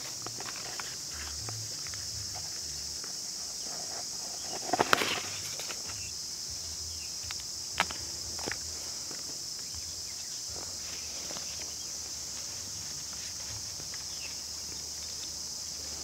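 Steady high-pitched drone of insects in dry scrub, with a few brief rustles and clicks over it. The loudest cluster of clicks comes about five seconds in, with two more near eight seconds.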